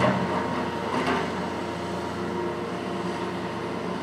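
Large Hitachi ZX470LCH-3 crawler excavator's diesel engine running steadily under working load. There is a knock at the start and another about a second in.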